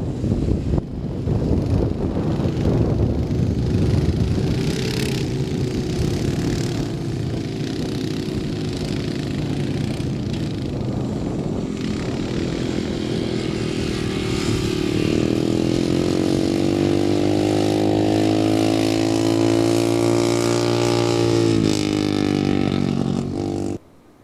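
Quad bike engines running on the sand. About two-thirds of the way through, one engine's pitch rises and holds higher as it accelerates. The sound cuts off suddenly near the end.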